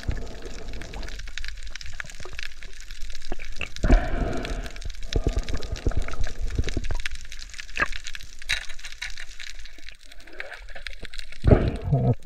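Water sloshing and gurgling around an underwater camera held just below the surface, in uneven swells, with many small scattered clicks.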